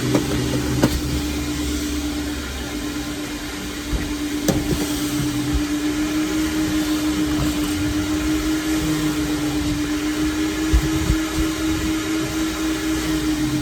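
Vacuum cleaner running steadily with a constant hum and rushing air, with a couple of sharp knocks about one and four and a half seconds in.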